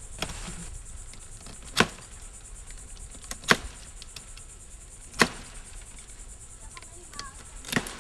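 Knife chopping into the stem of a cabbage palmetto (Sabal palmetto) frond to cut it free: four sharp cuts a couple of seconds apart.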